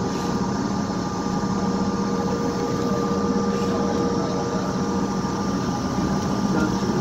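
Steady cabin noise inside a CRJ-700 taxiing after landing: a continuous rush from the rear-mounted GE CF34 turbofans running at low thrust, with several steady hums layered over it.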